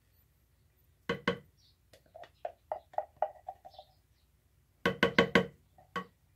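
Spatula scraping and knocking inside a metal can of pumpkin puree as it is emptied into a pot. Two knocks come about a second in, then a quick run of light, ringing taps, then a cluster of sharper knocks near the end.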